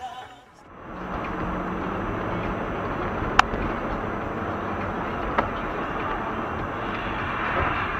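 Car driving, heard from inside the cabin through a dashcam: steady engine and tyre noise that comes in about a second in, with one sharp click near the middle and a fainter click about two seconds later.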